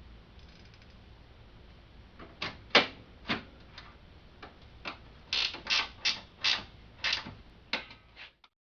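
About a dozen sharp metallic clicks and knocks at an uneven pace of roughly two a second, from hand work on a Honda Civic's hood latch and its mounting bolts. The sound cuts off suddenly near the end.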